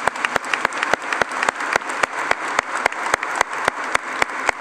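Congregation applauding, with sharp nearby claps standing out at a quick, even pace over the wider clapping.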